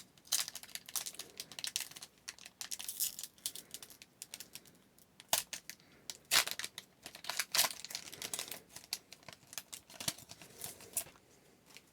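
Wrapper of a hockey card pack crinkling and tearing open in irregular crackles, the sharpest a little past the middle.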